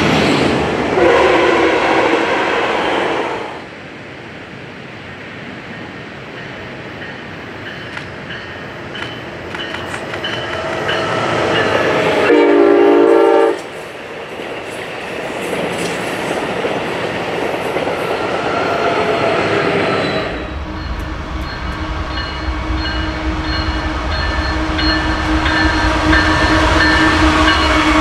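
Passenger train horns and passing railcars: a horn sounds for the first few seconds, and a second short horn blast comes about twelve seconds in as the cars roll by. Near the end, diesel freight locomotives rumble past with a deep, steady engine drone.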